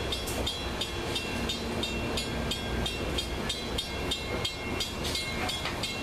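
Amtrak passenger cars rolling past with a steady low rumble, while a grade-crossing bell rings rapidly and evenly, about four strokes a second.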